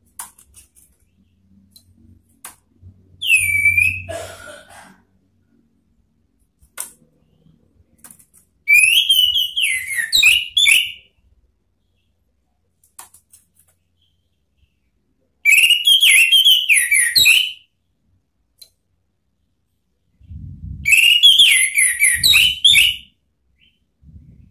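Orange-headed thrush singing: four loud phrases of rich, sliding whistled notes, a short one about three seconds in, then three longer ones several seconds apart. Low thuds sound under the last phrase.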